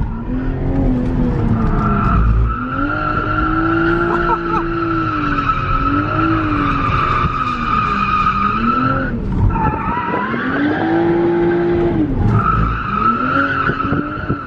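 Toyota GR Supra being drifted, heard from inside the cabin: the engine revs rise and fall again and again while the tyres squeal in long stretches. The squeal breaks off about nine seconds in and picks up again near the end.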